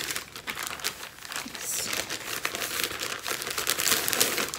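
Clear plastic bag crinkling as it is handled and folded, a dense run of irregular crackles that is loudest near the end.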